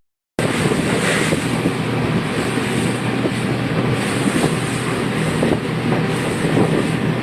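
A boat's engine running steadily under heavy wind rushing on the microphone. It starts after a split-second gap.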